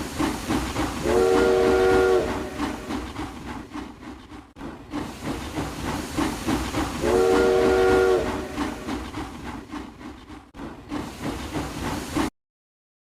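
Steam train running with a hissing, chugging rumble, its multi-tone whistle blowing twice, each blast about a second long; the sound cuts off suddenly near the end.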